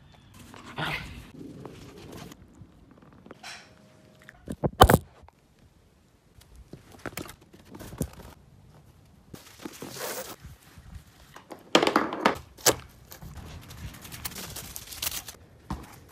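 A chain of one-second snippets of a young Shetland sheepdog, the sound changing abruptly about every second, with the dog's own noises among them. The loudest moments are a pair of sharp knocks about five seconds in and a loud burst near twelve seconds in.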